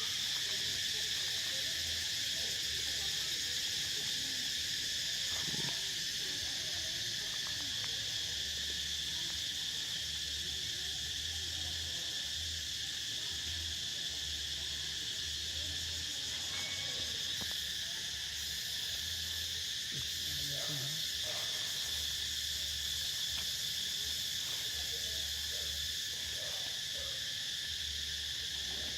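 Steady chorus of insects droning at several constant high pitches, with a few faint short sounds underneath.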